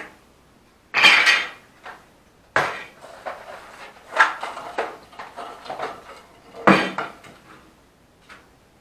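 Metal objects clattering and rattling in four or five separate bursts, the loudest about a second in and near the end, as things are picked up and set down.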